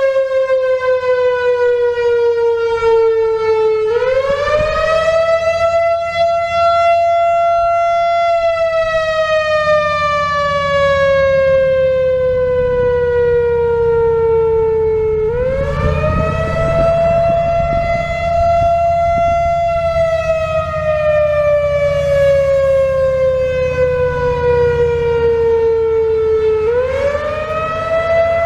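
Late-1980s Whelen WPS-4000-4 electronic outdoor warning siren on its original ESC-864 controller, sounding an analog wail. The tone sweeps up fast, holds at the top for a few seconds, then slides slowly down, repeating about every eleven seconds. Its output is weaker than such a unit should give, which is thought to be down to age and a couple of blown-out drivers.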